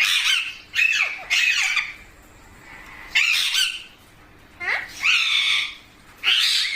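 Rose-ringed (ringneck) parakeet squawking: about six loud, harsh calls in short bursts with brief pauses between them.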